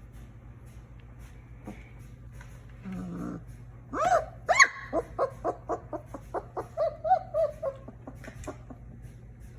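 Three-week-old German Shepherd puppy crying: a low grunt about three seconds in, then a rising whine and a quick run of short, high whimpers and yelps, about three a second, for some four seconds.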